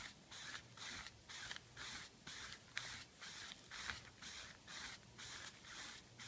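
A large brush scrubbing pigment into cloth with quick back-and-forth strokes, about three a second, each a soft bristly rasp.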